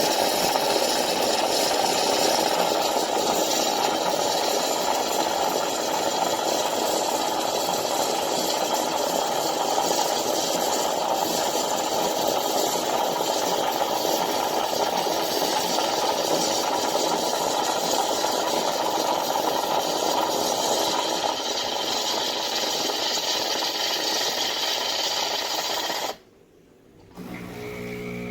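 CASABREWS espresso machine's automatic milk frother steaming milk for a cappuccino: a steady, loud mechanical noise that cuts off suddenly about 26 seconds in.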